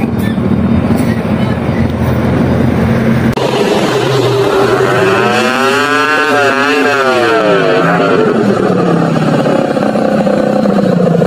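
Small motorcycle with a homemade exhaust pipe made from a can, its engine revving: the pitch climbs for a couple of seconds and then drops back as it rides along.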